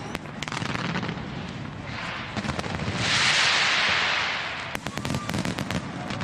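Fireworks going off: rapid pops and crackles over a low rumble, with a loud crackling hiss about three seconds in that lasts over a second.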